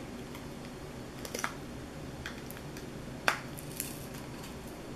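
Fingers prying a Nexus 5's battery out of the plastic phone frame against its adhesive, giving a few small sharp clicks and ticks, the loudest a little over three seconds in.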